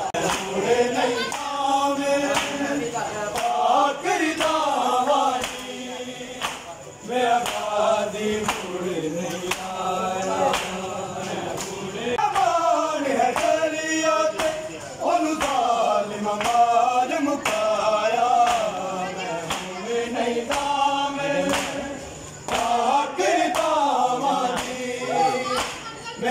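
A group of men's voices chanting a noha, a Muharram lament, together, over a steady beat of sharp slaps, the hand-strikes of matam on bare chests.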